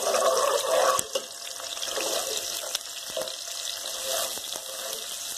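Sliced onions sizzling as they fry in hot ghee in a pot, with a few knocks of a spatula stirring them. It is a little louder in the first second.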